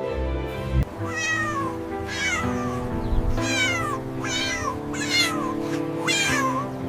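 A small animal crying five times, each call high and sliding down in pitch, over background music with steady held notes.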